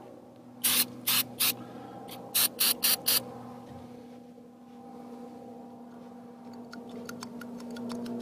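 Aerosol can of gun-scrubber degreaser (a brake-cleaner type solvent) sprayed in about seven quick short bursts onto stripped AR-15 bolt-carrier parts to strip off the lubricant. Faint light clicks follow near the end.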